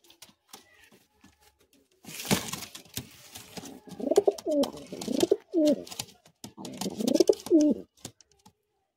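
Madrasi pigeons in a wooden nest box: a brief flutter and scuffle about two seconds in, then a pigeon cooing several times in a row, each coo rising and falling in pitch.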